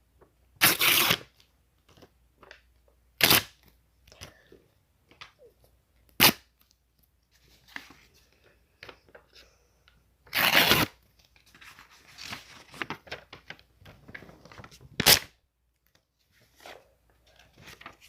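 Paper being torn in five separate short rips, the longest ones about a second in and near the middle, with softer paper rustling and crinkling between them.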